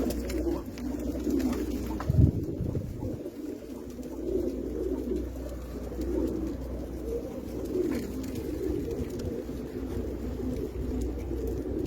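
Many domestic pigeons cooing at once, their low coos overlapping without a break. A single dull thump sounds about two seconds in.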